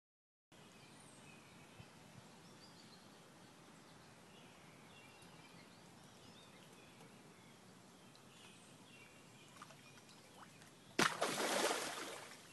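Faint outdoor pond background with birds chirping lightly. About eleven seconds in, a sudden loud rushing noise that fades over about a second and a half.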